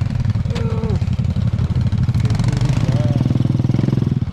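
Vehicle engine running steadily with an even low throb, with a couple of brief voice sounds about half a second and three seconds in.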